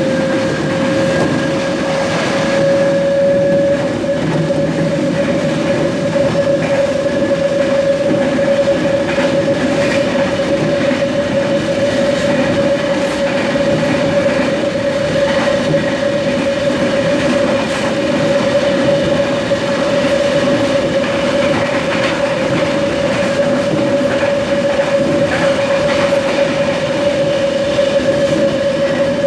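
Trensurb Série 100 Hitachi electric train's traction motors droning loudly while running along the line, heard from on board. The steady whine rises a little in pitch over the first few seconds and then holds. Under it run wheel-on-rail noise and occasional light clicks of rail joints.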